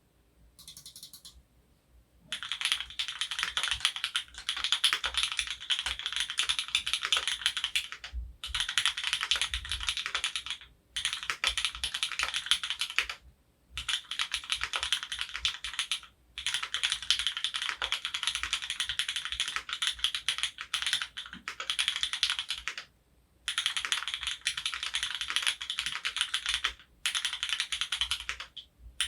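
Fast continuous typing on an F1-8X gasket-mounted mechanical keyboard with Krytox-lubed retooled Cherry MX Black linear switches on an aluminium leaf-spring plate, damped with GON foam. The typing comes in runs of several seconds with brief pauses between them.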